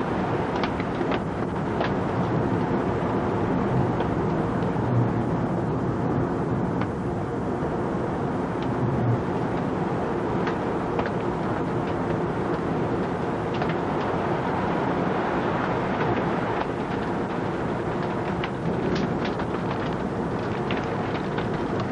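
Ominous, steady roar of extreme storm winds near a rain-wrapped tornado, heard from inside a building on a VHS camcorder, with scattered sharp ticks of rain striking the window glass.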